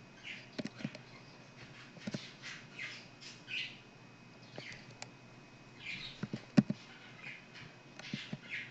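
Computer keyboard keys and mouse buttons clicking in an irregular scattered run of sharp taps and short scratchy strokes. The loudest click comes about two-thirds of the way through.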